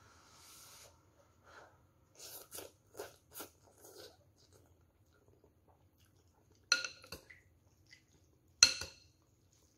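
A person slurping noodles and then chewing in a run of short wet smacks. Later come two sharp, ringing clinks, the second the louder: a metal spoon and chopsticks striking the bowl.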